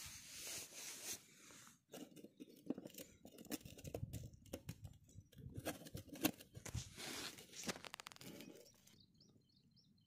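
Stainless-steel stacked tiffin lunch box being opened by hand: a quick run of metal clicks and clinks from the latch, lids and containers, dying away near the end.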